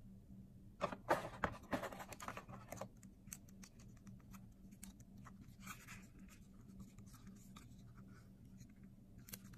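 Handling noise from an AZDOME M550 dash cam's plastic body. About a second in there is a dense run of scrapes and clicks, followed by scattered lighter clicks as fingers turn the swivelling cabin camera. A low steady hum sits underneath.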